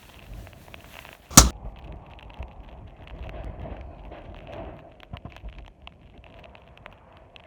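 A single sharp, loud bang about a second and a half in, followed by faint scattered clicks and light rustling.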